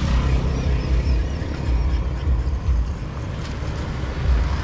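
Outdoor street-market background noise, dominated by a low, uneven rumble.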